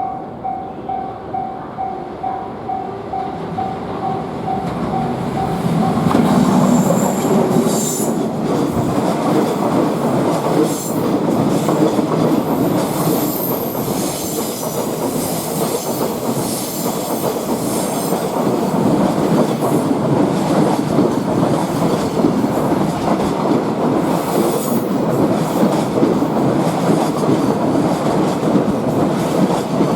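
A Japanese level crossing bell ringing about twice a second, drowned out about six seconds in as a freight train passes, its wagons clattering over the rail joints with high wheel squeals.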